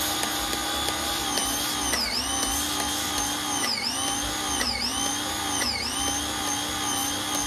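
Small electric pressure washer running while spraying soap through a foam cannon: a steady motor whine over the hiss of the spray. The whine dips in pitch and recovers four times, about a second apart.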